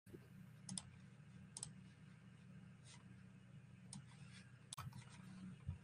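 Near silence: a handful of faint, irregular clicks over a low steady hum.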